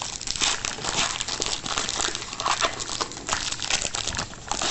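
Foil wrapper of a trading-card pack crinkling and rustling in the hands as the pack is opened, irregular crackles throughout with a louder burst near the end.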